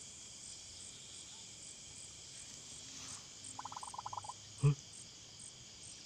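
Crickets chirping steadily at night, a high chirp repeating a few times a second. A short rapid trill comes a little past three and a half seconds, and a single soft knock just under five seconds in.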